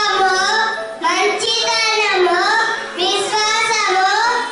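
A boy singing solo into a handheld microphone, in phrases about two seconds long with short breaths between them, the melody rising and falling.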